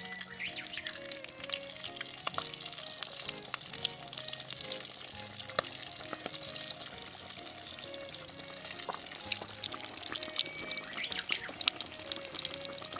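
Croquettes deep-frying in hot oil: a dense, steady sizzle full of fine crackles and pops.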